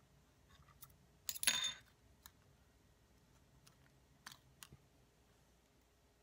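A small screwdriver set down on a tiled table with a short clatter about a second and a half in, followed by light clicks of hard plastic as the prop guard is pried off a toy drone's arm by hand.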